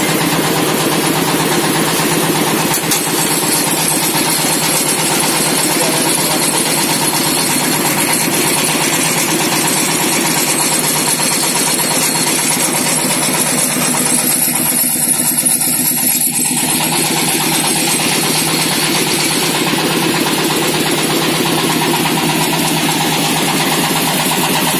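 Stationary diesel engine running steadily, driving a belt-driven meat grinder through V-belts and pulleys, with a fast, even firing beat. This is a test run of the grinder machine before use.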